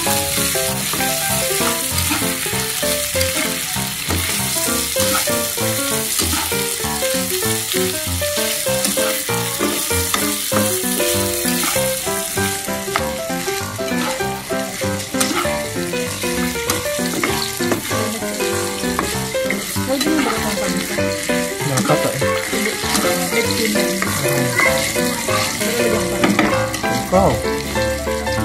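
Chicken pieces and diced fried tofu sizzling in oil in a pan, stir-fried and turned with a metal slotted spatula in an oyster-sauce and soy-sauce glaze.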